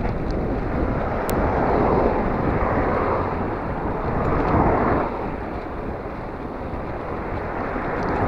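Wind buffeting the microphone of a camera on a moving bicycle, mixed with rolling road noise. It swells louder from about two to five seconds in, then eases.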